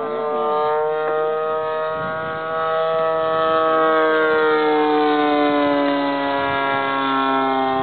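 34cc gasoline engine of a radio-controlled Katana model aeroplane running in flight, a steady buzzing whine. Its pitch rises a little and it grows loudest about four seconds in, then the pitch falls away as the plane flies by.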